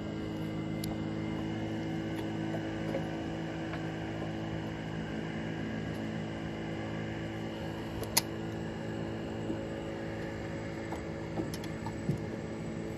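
A steady low hum made of several fixed tones, with a few light clicks and one sharp click about eight seconds in.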